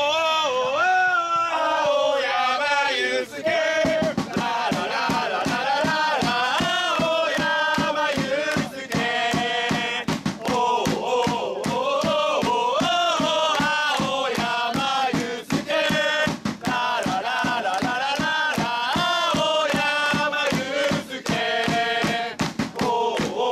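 Football supporters singing a player's chant together, one melody in unison. A steady beat of about four strokes a second comes in about three and a half seconds in and carries on under the singing.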